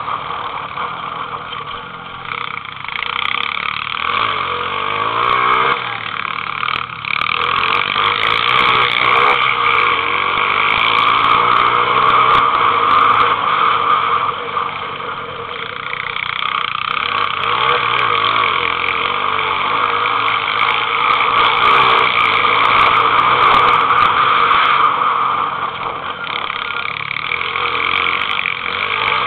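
Pit bike engine running under way, its pitch rising and falling again and again as the throttle is opened and closed.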